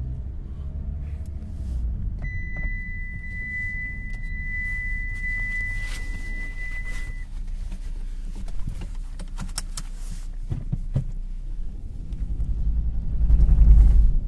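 Inside a 2008 Mitsubishi Lancer 1.5 with the engine running: a steady low rumble, with a steady high beep lasting about five seconds early on. A few sharp knocks come past the middle, then the low rumble swells loudly near the end. This is the knocking and vibration on moving off that the owner puts down to the clutch or flywheel and that he hears only on a cold start.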